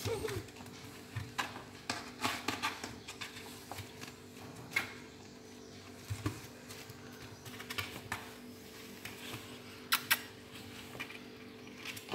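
Kittens scrambling about in a cardboard box: scattered light scratches, taps and rustles from claws and paws on cardboard and plastic, over a faint steady hum.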